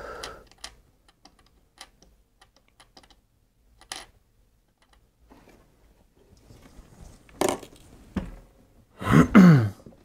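Scattered light clicks and taps of a soldering iron tip and solder wire working against the small metal terminals of a 9-volt battery snap connector on a tabletop. A louder knock comes late on, and a louder short sound near the end.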